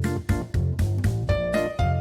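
Background music: an upbeat track with a steady beat, bass and keyboard, a melody line of single notes coming in partway through.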